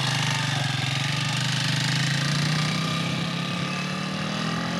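Small motorcycle engine running steadily under way, with a fast rattling pulse. Its pitch climbs a little through the second half.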